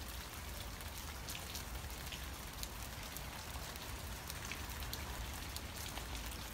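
Steady rain ambience: an even soft hiss with scattered light ticks of drops.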